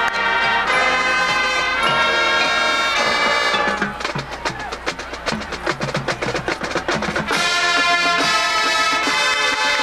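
High school marching band playing its field show music. The horns hold chords, then give way to a drum-line passage of rapid strikes from about four seconds in, and the full band's chords return about seven seconds in.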